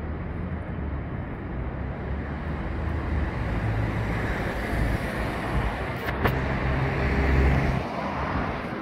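Street traffic: road vehicles running past with a low engine rumble that swells to a louder pass about seven seconds in, then eases off. A sharp click comes about six seconds in.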